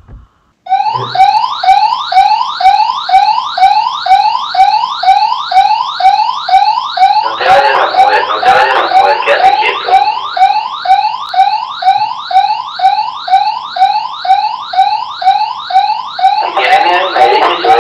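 Motion-sensor alarm going off about a second in: a loud electronic siren whose rising sweeps repeat nearly three times a second. It signals that the sensor has detected movement.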